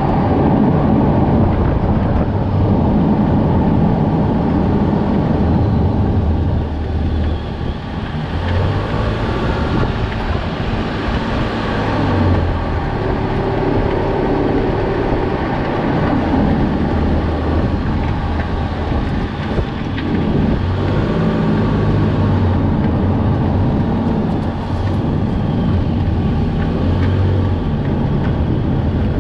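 Toyota Vanguard 240S's 2.4-litre 2AZ-FE four-cylinder petrol engine running, a loud steady low drone mixed with a broad rushing noise, rising and dipping slightly a few times.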